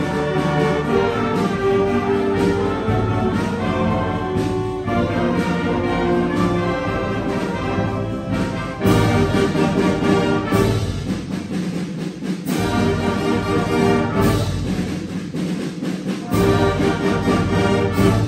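Seventh-grade concert band of brass, woodwinds and percussion playing sustained chords, with a sudden louder full-band entry about nine seconds in, a softer passage after, and another swell near the end.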